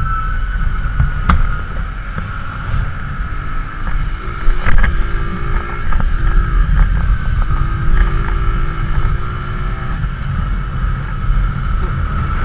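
Bajaj Boxer CT 100's small single-cylinder four-stroke engine running under way, mixed with steady wind rush on the helmet-mounted microphone. A few sharp clicks and knocks, the loudest about halfway through, and several short pitched tones come through in the middle.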